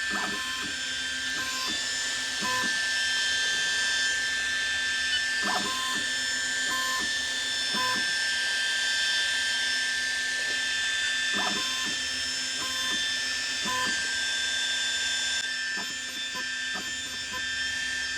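Alpha Mk2 laser engraver running its framing preview: a steady whir with several high steady whining tones as the motors move the laser head over the outline of the job, and occasional short ticks.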